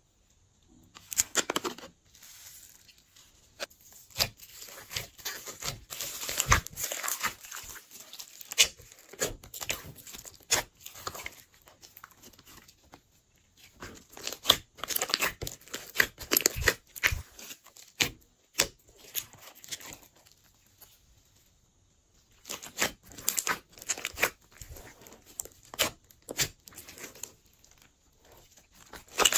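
Hands squishing and stretching a large mass of glossy slime mixed with foam beads: irregular sticky clicks, pops and crackles in clusters, with a few short pauses.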